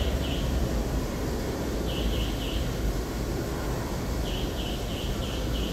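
Low steady rumble of an R46 subway train pulling away down the tunnel. Short high chirps come over it in runs of three to five, about three a second: near the start, about two seconds in and about four seconds in.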